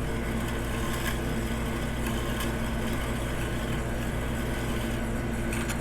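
Piston ring end-gap grinder running with a steady motor hum while a custom piston ring's end gap is ground down to size, with a few faint clicks.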